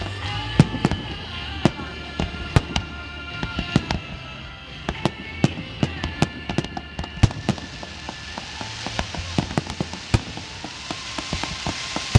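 Fireworks display: a rapid, irregular run of sharp bangs and pops from exploding shells, heard over music with sustained tones. Near the end a hissing crackle builds up.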